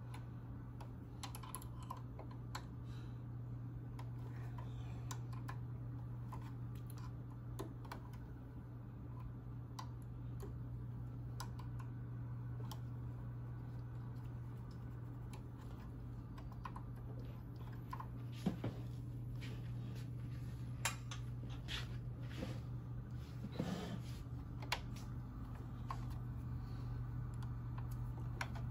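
Scattered light clicks and taps of small hard parts being handled, with a few sharper knocks in the second half, over a steady low hum.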